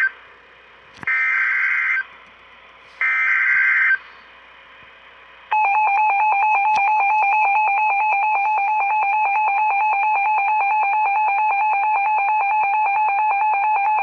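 NOAA Weather Radio alert start for a flood warning: the SAME digital header's one-second data bursts, each followed by a second's pause. Then, about five and a half seconds in, the long steady warning alarm tone starts and holds.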